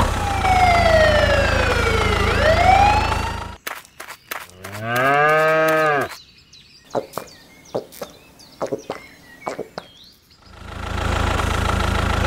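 Dubbed sound effects for a toy tractor animation: a tractor engine runs steadily with a whistling tone that falls and then rises, stopping about three and a half seconds in. A cow moos once around five seconds in, followed by scattered clicks and short chirps, and the tractor engine sound returns near the end.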